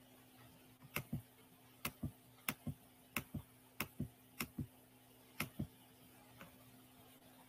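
Computer mouse clicked repeatedly, each click a close double tick of button press and release, about eight in a row at a steady pace of roughly one every two-thirds of a second, starting about a second in. The clicks are faint, over a low steady hum.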